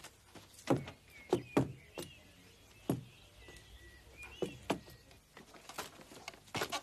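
Irregular knocks and footsteps, with two faint, wavering high squeaks in the first two-thirds.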